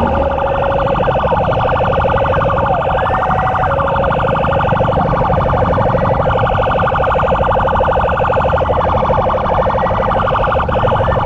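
Electronic emergency sirens sounding together: a fast, even pulsing tone runs throughout, with short rising whoops every second or two and a brief steady tone near the start and again about three and a half seconds in. Engine and traffic rumble lies underneath.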